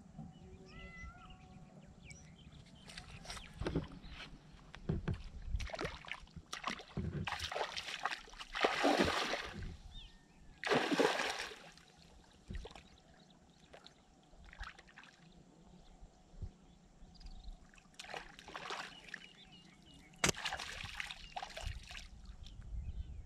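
Water splashing and sloshing in irregular bursts, with two longer splashes near the middle. A bird chirps faintly at the start.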